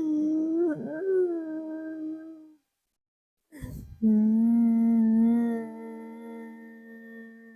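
A woman humming on the out-breath in a pranayama breathing exercise. One hum, wavering a little in pitch, ends about two and a half seconds in. A sharp audible in-breath follows a second later, then a second, lower, steady hum that fades away near the end.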